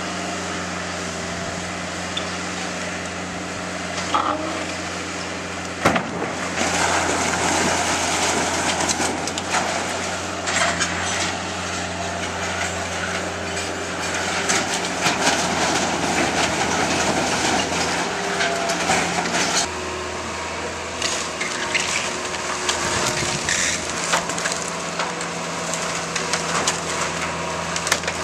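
Bobcat 753 skid-steer loader's diesel engine running steadily while it pushes over and crushes a wooden shed. A sharp crack comes about six seconds in, then long stretches of timber cracking, crunching and splintering, easing off for a moment about two-thirds through.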